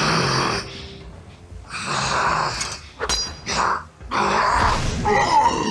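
Cartoon sci-fi fight sound effects: several rushing noise bursts, each lasting under a second, with a sharp metallic clink about three seconds in and a longer rush near the end.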